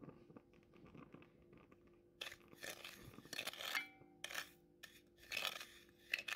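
Wooden spatula scraping and stirring dry granulated sugar across a pan, the first step of melting sugar for peanut brittle. It starts about two seconds in as a series of gritty scraping strokes, several in quick succession.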